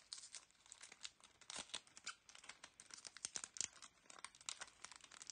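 A Topps Chrome baseball card pack wrapper crinkling and crackling faintly in irregular small ticks as it is handled and torn open.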